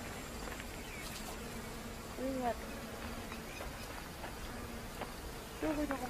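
Flies buzzing past in short passes with a wavering pitch, once about two seconds in and again near the end, over a faint steady background noise.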